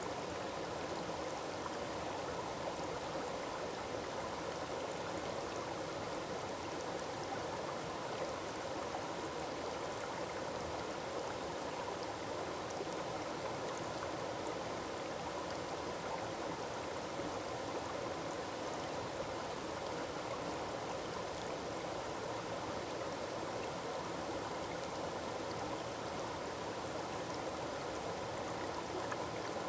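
Forest waterfall: water falling and rushing in a steady, unbroken wash of sound that never rises or falls.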